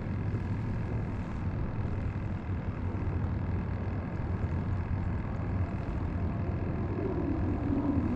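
Steady low rumble of wind and water noise with a faint steady whine from the kayak's electric trolling motor on autopilot, holding position; the rumble swells a little near the end.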